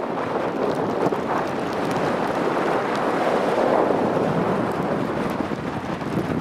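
Strong storm wind buffeting the microphone as a steady rushing noise, with heavy rain and rough surf mixed in.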